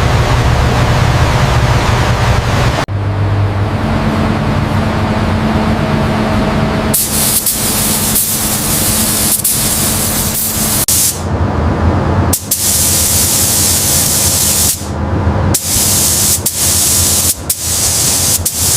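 Loud hissing spray sounds across a string of short shots that cut off abruptly every few seconds, with a low rumble under the first three seconds.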